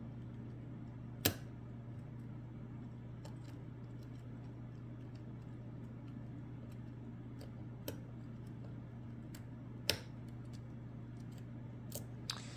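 Sparse, faint clicks of a lock pick working the pins of a Lockwood Twin padlock, the sharpest about a second in and again near ten seconds, over a steady low hum.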